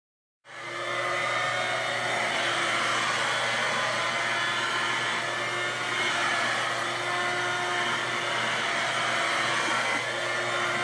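Handheld vacuum cleaner running steadily, its motor coming on about half a second in.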